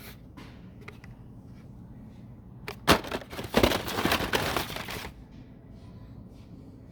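A cluster of sharp clicks and rustling, like toy packaging being handled, about three seconds in and lasting two seconds, over a low steady background hum.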